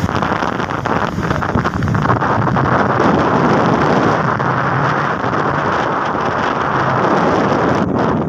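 Steady rushing of a broad, muddy flash flood pouring across a wide valley floor, with wind buffeting the microphone.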